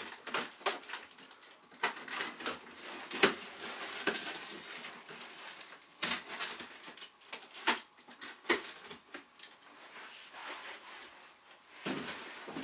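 A knife slitting packing tape on a large cardboard box, with irregular clicks, scrapes and crackles as the cardboard is handled and pulled at.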